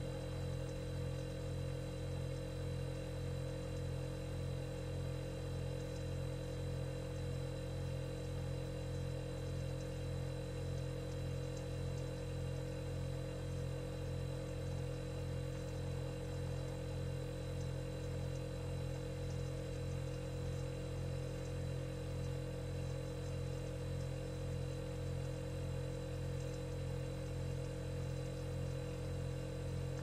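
Steady low electric hum with a slight even pulse and a faint high-pitched whine above it, unchanging throughout.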